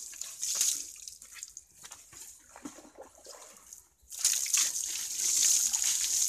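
Water trickling and dripping off a wet motorcycle, then, from about four seconds in, a bucket of water poured over the fuel tank, splashing steadily.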